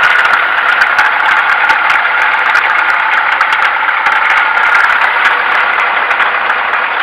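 YaMZ-238 V8 diesel of a Ural truck idling steadily, heard close from underneath near the sump and belt drive, with a dense run of clattering ticks over the engine's steady running.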